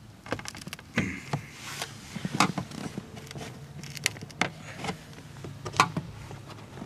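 Irregular clicks, knocks and rustles of handling at a car door: a prying tool worked under the door panel, and the camera being moved by hand. They come over a faint steady low hum.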